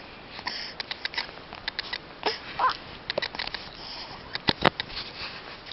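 Soft sniffing and snuffling with small clicks and a couple of brief squeaks, then a single short, sharp sneeze about four and a half seconds in.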